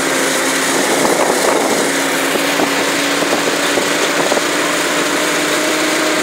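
UTV engine running steadily under way across a field, with scattered short knocks and rattles, most about a second in.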